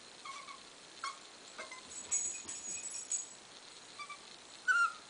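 A seven-week-old puppy whimpering in short, high-pitched whines, with the longest and loudest whine near the end. It is a young dog's reluctant whining at the top of a staircase it won't come down.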